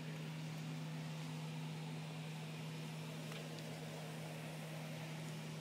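Steady low mechanical hum under an even hiss of moving air, from equipment running inside a motorhome, with a couple of faint ticks about three and a half seconds in.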